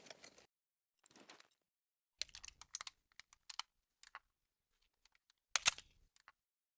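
Desert Eagle handgun being handled: scattered quiet mechanical clicks and rattles in small clusters, the sharpest about two and a quarter seconds and five and a half seconds in.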